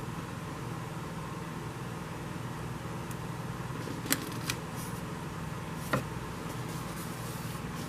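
Steady low room hum, like a fan or air conditioner, with a few light clicks and taps about four and six seconds in as card stock and adhesive are handled.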